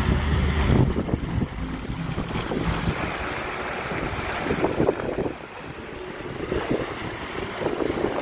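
Wind buffeting the microphone, heaviest in the first second, over splashing water from small fountain jets spurting up from a pool floor.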